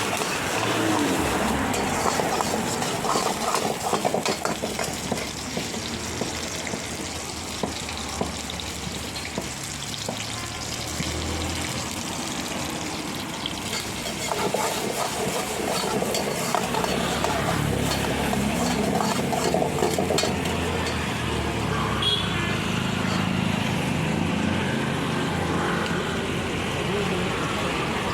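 Chilli chicken gravy frying and being stirred in a pan, a steady sizzle with frequent short clicks.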